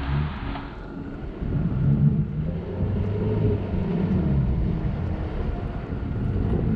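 Off-road 4x4 vehicle's engine running and revving, its pitch rising and falling, loudest about two seconds in.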